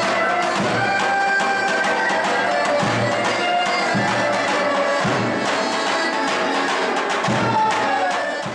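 Turkish folk dance music: a reedy wind instrument plays a wavering melody over uneven deep drum beats. It breaks off sharply at the very end.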